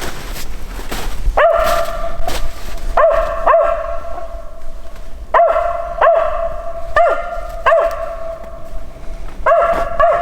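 Mountain feist dog barking about nine times with clear, evenly pitched barks, several in quick pairs, a second or two apart.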